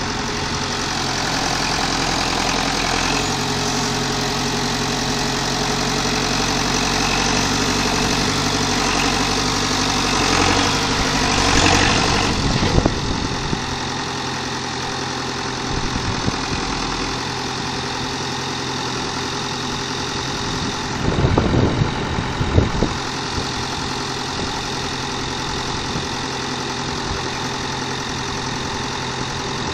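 Massey Ferguson 590 tractor's four-cylinder Perkins diesel running. It works harder and louder through the first part, then drops back to a steady idle. About two-thirds of the way in comes a short cluster of knocks.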